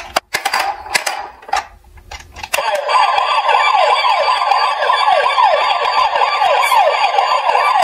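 Plastic clicks and knocks as a toy fire truck is handled, then about two and a half seconds in its battery-powered electronic siren comes on. The siren is a fast, repeating wail of falling sweeps that keeps going.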